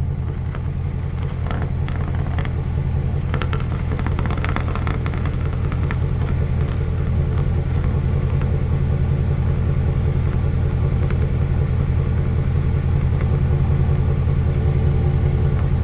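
Exhaust of a 2017 Ford E450's 6.2-litre V8 idling, heard close at the tailpipe: a steady low rumble. It carries a slight misfire, audible but not severe, which the mechanic's power balance test puts mainly on cylinder 7.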